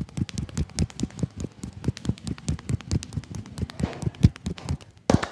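Fast rhythmic tapping massage: a barber's hands striking the customer's body in quick strokes, roughly eight to ten a second, mostly dull thuds with some sharper slaps, and a brief pause near the end.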